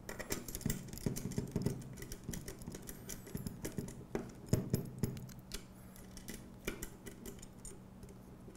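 Small irregular metallic clicks and ticks from a hex driver turning screws and the bracket hardware shifting as 90-degree brackets are tightened onto aluminium C-channel.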